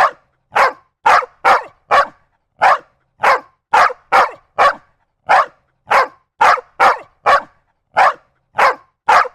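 Security dog barking repeatedly, about two sharp barks a second in clusters of two or three, each cut off cleanly into silence.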